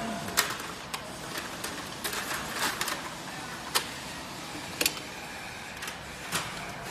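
A handful of sharp, irregularly spaced clicks and taps from wires and plastic connectors being handled in an electric scooter's battery compartment, over a steady background hiss.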